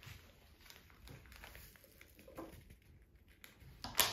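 Faint handling noises of small plastic bags of diamond painting drills being picked through, with one sharp plastic crackle near the end.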